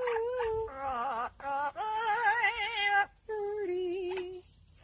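A bird mimicking a singing voice: several wavering, warbled phrases with a quick vibrato, broken by short pauses, the last one lower and trailing off near the end.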